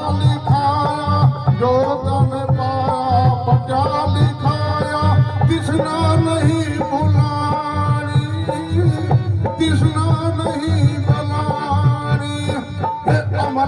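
Instrumental interlude of a devotional bhajan: a held, slightly wavering melody over a steady hand-drum rhythm.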